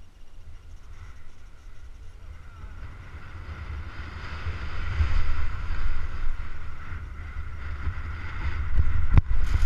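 Wind buffeting the microphone of a body-worn GoPro action camera on a rider moving downhill, with the hiss of snow sliding under the rider, growing louder from about three seconds in. A few sharp knocks come near the end.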